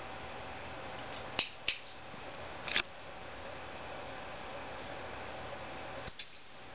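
Cape parrot making short, sharp high-pitched clicks: two about a second and a half in, another near three seconds, and a quick run of them near the end.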